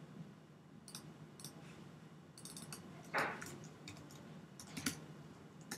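Faint, scattered clicks of a computer keyboard and mouse as a short line of text is typed, with a quick run of key taps about two and a half seconds in and a slightly louder click about three seconds in.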